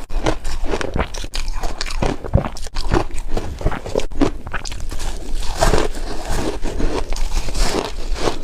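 Close-up chewing and crunching of chunks of refrozen shaved ice, a continuous run of sharp irregular cracks and crackles.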